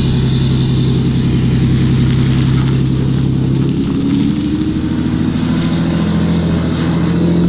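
Ford Super Duty pickup engine pulling away under load, towing a flatbed trailer with a car on it, accelerating steadily. The engine note shifts about four seconds in and then climbs again.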